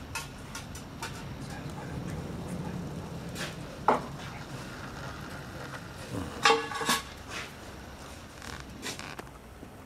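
G-scale garden railway train running along outdoor track: a low hum with scattered light metallic clicks and clinks, the loudest a short ringing clink about six and a half seconds in.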